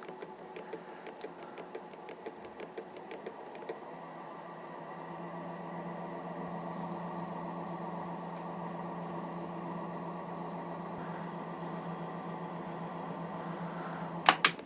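Small electric motor running steadily as it turns the lathe's M10×1.5 left-hand cross-feed lead screw through a squeezed split die, sizing down the thread's worn length. There is light rapid ticking in the first few seconds, and the sound grows a little louder after that.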